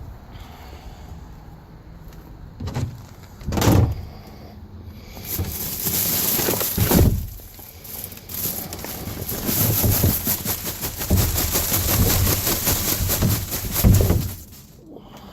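Several knocks and thuds, then a long stretch of rattling and scraping thick with small clicks, ending in another thud near the end: wrecked shoes and debris being handled and thrown into a garbage can.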